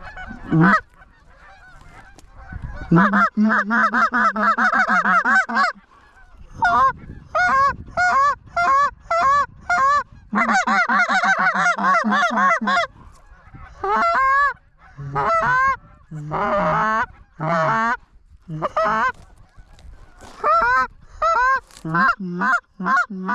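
Goose honks and clucks in quick runs, several calls overlapping in the loudest stretches about three seconds in and again about ten seconds in, with shorter single calls between and near the end.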